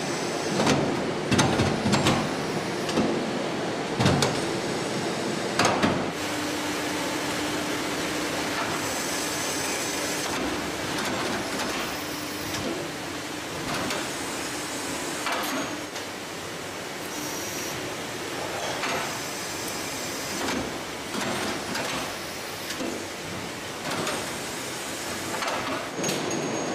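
Automated factory assembly-line machinery running: sharp clanks and knocks over the first six seconds, then a steady mechanical hum with a faint held tone and a few short high hisses.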